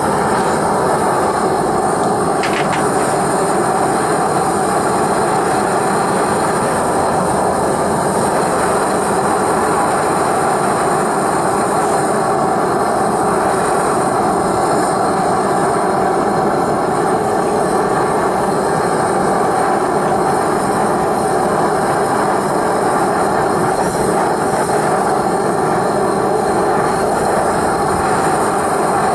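Propane burner of a small Micro Mini melting furnace firing steadily, a constant rushing noise, while it heats a crucible of silver to melting.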